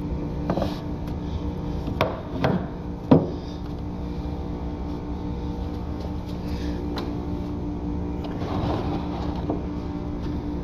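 A few short knocks of a steel drain plug and wrench being set down on a plywood board, the loudest about three seconds in, over a steady background hum.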